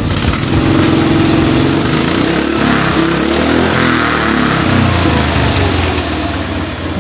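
Lawnmower engine of a home-built motorcycle running and being revved with the throttle, its pitch rising and falling a few times in the middle.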